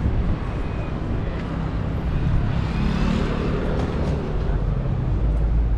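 Road traffic on a city street: a vehicle passes close by, swelling to its loudest about halfway through, over a steady low engine rumble that grows deeper near the end.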